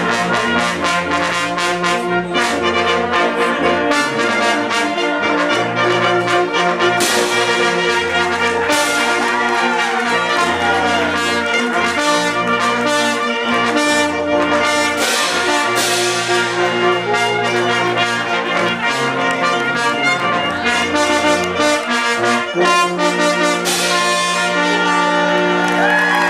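Brass band playing a lively tune, with a bass part stepping between notes under the melody and a steady beat.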